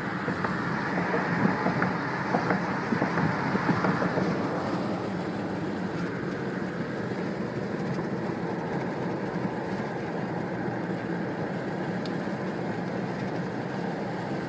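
Steady road and tyre noise heard inside the cabin of a vehicle driving on a highway. For the first few seconds it is louder and rougher, with scattered clicks and knocks, then it settles to an even rumble.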